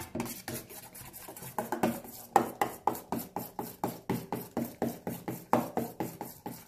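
Metal spoon stirring in a stainless steel bowl, clinking and scraping against the sides at about four strokes a second, as glue and foaming hand soap are mixed into a creamy slime base.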